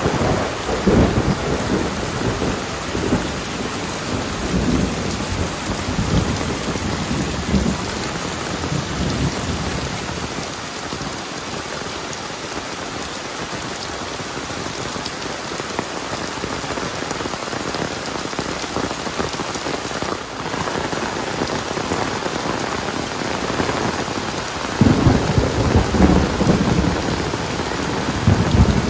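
Heavy rain pouring steadily. Bursts of low rumbling come through in the first ten seconds and again in the last few seconds.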